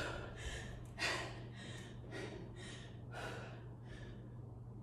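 A woman breathing hard from exercise exertion, short noisy breaths about two a second.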